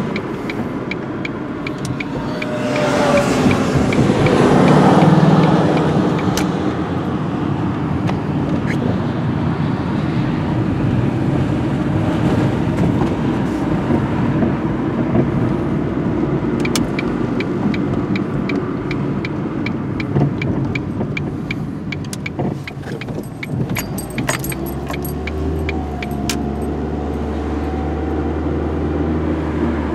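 Car driving, heard from inside the cabin: steady road and engine noise, with a swell of noise as a vehicle passes a few seconds in. The turn signal ticks near the start and again about halfway through.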